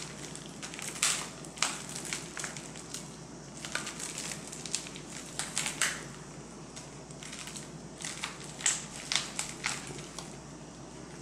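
Bubble-wrap packaging being handled and torn open by hand: plastic crinkling with irregular sharp crackles.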